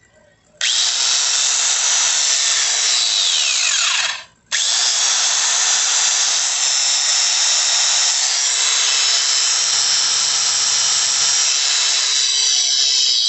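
DeWalt angle grinder test-run after its dry gears were regreased: switched on, winding down with a falling whine after a few seconds, then switched on again and running steadily. The repairer believes the rubbing noise it had is now gone.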